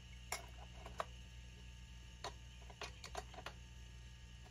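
A wrench clicking against brass air fittings as a ball valve is tightened onto an air compressor's regulator: a few scattered metallic clicks, with a quick run of them about three seconds in, over a low steady hum.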